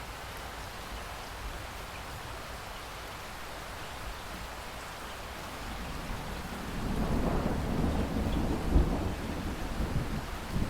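Steady rain falling, joined about two-thirds of the way in by a low rolling rumble of thunder that builds, with a sharp louder crack near the end.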